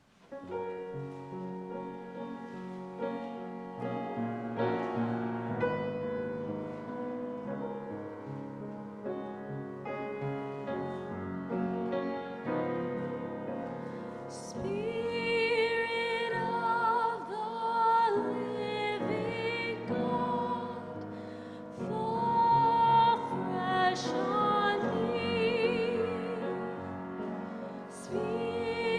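Church hymn music: a keyboard plays sustained chords as an introduction, and singing voices join about halfway through over the accompaniment.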